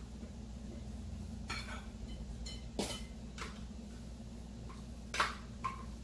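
A utensil scraping and knocking against a blender jar as thick cheese dough is emptied into a glass bowl: a handful of short clinks and knocks, the sharpest about three and five seconds in, over a steady low hum.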